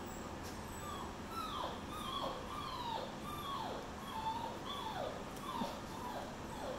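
German Shepherd puppy whining in protest at being held on its back in a restraint test: a rapid string of short, high, falling whines, about two a second, starting about a second in.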